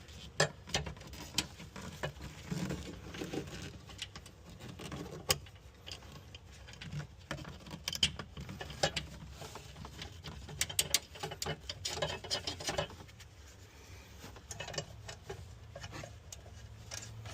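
Irregular small clicks, taps and scrapes of metal and plastic parts handled by hand while battery mounting hardware is fitted, with a few sharper knocks.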